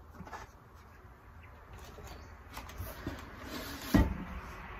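Handling noises as chainsaw parts are slid into a plastic sheath and set down: small clicks and scrapes, with one sharp knock about four seconds in.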